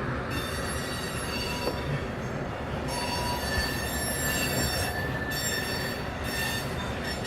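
CSX freight train's grain hopper cars rolling past with a steady rumble, their steel wheels squealing in high tones that come and go every second or two.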